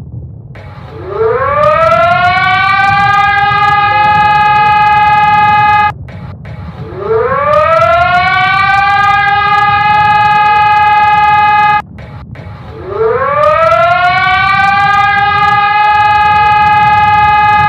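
Civil-defense-style emergency alert siren that winds up in pitch, holds a steady wail and then cuts off abruptly, three times, about every six seconds. Underneath runs a continuous low rumble, an earthquake sound effect.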